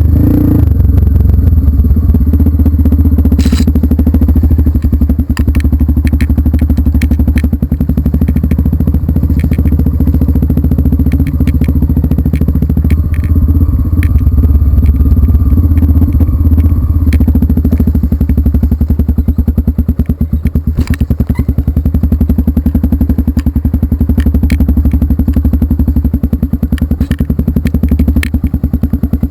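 An off-road vehicle's engine running steadily and loudly close to the microphone, with scattered knocks and clatter as it moves over the trail.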